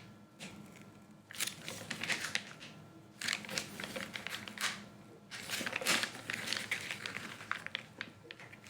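Packaging being opened as the factory seal on a sealed computer box is broken: irregular crinkling, rustling and tearing of tape and wrapping in uneven bursts.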